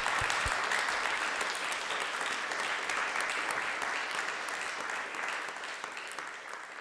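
Audience applauding, the clapping gradually dying away towards the end.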